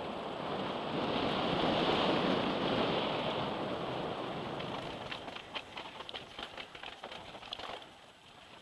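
Wind noise on the microphone and tyre noise from a mountain bike descending a dirt trail at speed. From about five seconds in come quick rattles and knocks from rough ground, fading near the end.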